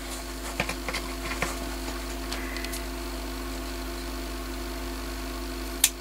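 A steady mechanical hum runs under a few light clicks of heat-shrink tubing being handled on its cardboard roll, then one sharp snip near the end as scissors cut a piece of tubing off.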